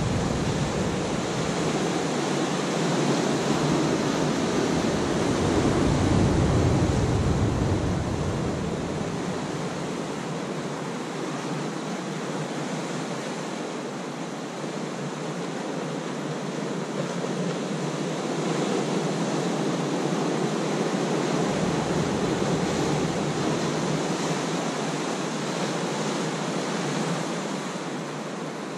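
Ocean surf washing in over a rocky shore: a steady broad hiss that swells and eases with the waves, loudest about six seconds in and building again past the middle.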